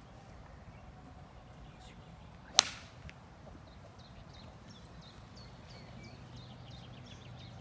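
A golf club striking a teed ball: one sharp, loud crack about two and a half seconds in.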